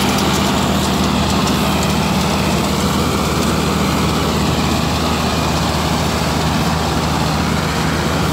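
Mahindra Arjun Novo 605 DI tractor's diesel engine running steadily under load, driving a tractor-mounted combine harvester's threshing machinery during the paddy harvest.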